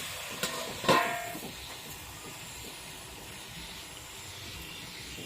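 Pork curry sizzling and hissing steadily in a cooking pan. Near the start come two knocks about half a second apart; the second is louder and rings briefly.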